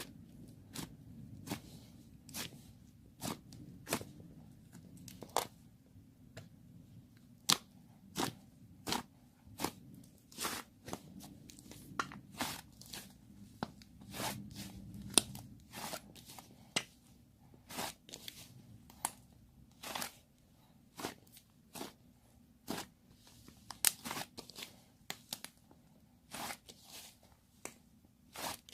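Slime being squeezed and poked by hand, making sharp, irregular clicking pops one to three times a second over a low steady hum.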